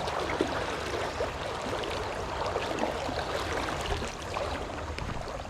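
Steady rush of a high, flood-swollen trout stream, with a low rumble and small scattered ticks mixed in.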